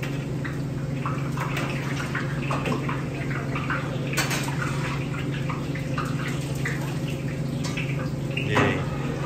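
Working kitchen noise: a steady low hum under watery liquid sounds and scattered light clinks and clatters of pots and utensils, with a louder clatter near the end.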